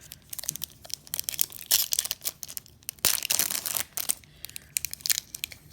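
Foil trading-card pack wrapper crinkling and being torn open, with irregular crackles and rustles, loudest about three seconds in.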